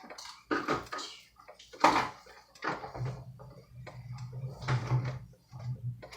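Kitchen handling noises: clinks, knocks and rustles of utensils and containers, the loudest a sharp knock about two seconds in, with a low hum through the middle.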